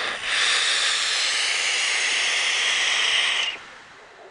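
Dark Horse RDA clone being fired and drawn on: a long, loud hiss of the coil firing and air rushing through the atomizer's airflow holes, cutting off about three and a half seconds in.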